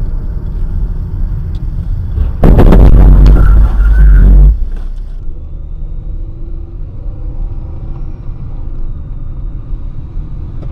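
Dash-cam recording from inside a moving car: low, steady road and engine rumble. About two seconds in, a very loud, distorted noise lasts about two seconds and stops abruptly. After a cut, quieter road rumble from a second dash cam follows.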